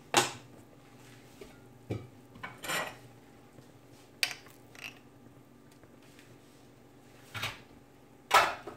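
Kitchen utensils and dishes being handled: about seven short clinks and clunks spread out over a quiet background, the loudest near the end.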